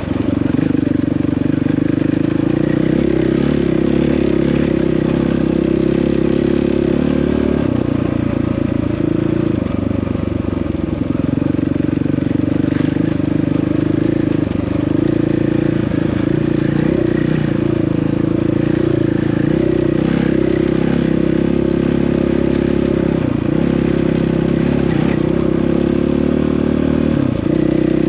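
Dirt bike engine running under way on a rocky trail. Its note rises and falls with throttle changes.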